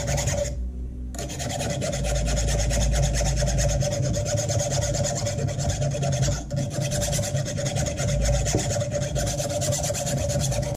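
Small hand file rasping on the steel cocking lever of a Gamo Carbon Storm air rifle in rapid, steady strokes, with a brief pause about two-thirds of the way through. The lever's teeth are being filed smooth so that they stop scratching the spring tube.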